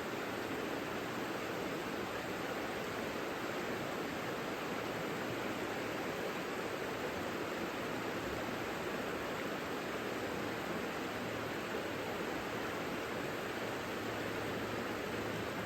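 The Savica river flowing: a steady, unbroken rush of water.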